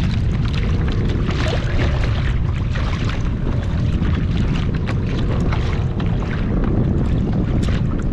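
Wind buffeting the microphone, with water splashing and lapping against a kayak hull.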